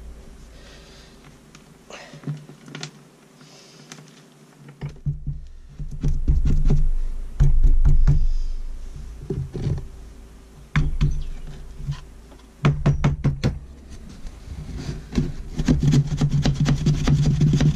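Hands patting and slapping a lump of damp soil into a cube on a wooden workbench, and squaring its sides with a flat board: a string of knocks and dull thumps on the wood, with a few short runs of rapid tapping.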